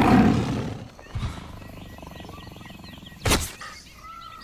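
Intro sound effects: a loud animal call right at the start, a short thump about a second in, and a sharp loud hit just after three seconds.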